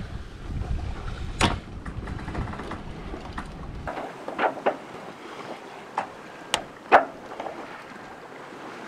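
Short sharp metal clicks and clinks of a screwdriver working a cotter pin in a sailboat's boom gooseneck fitting, spreading its legs to lock the gooseneck pin. About half a dozen clicks, the loudest a little before the end, over low wind rumble on the microphone that stops about halfway through.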